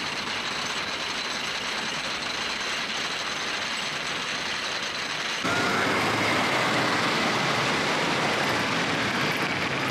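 Wooden roller coaster train running along its timber track, a steady noise that gets louder about five and a half seconds in.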